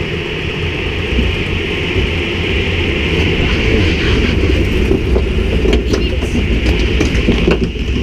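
Log flume boat being hauled up the lift hill by its chain conveyor: a steady rumbling clatter, with water rushing down the lift at first and a few sharp clicks in the second half.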